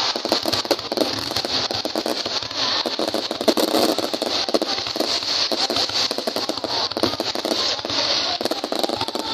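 Aerial fireworks firing in rapid succession: a continuous, dense run of bangs and pops from launches and bursting shells.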